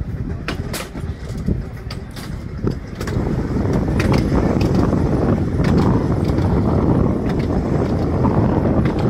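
Seaton narrow-gauge electric tram running along the track, its wheels clicking over the rail joints. About three seconds in, a louder steady rushing noise sets in.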